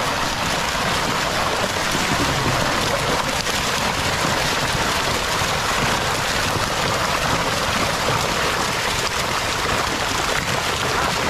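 Steady rush of splashing water, dense and unbroken.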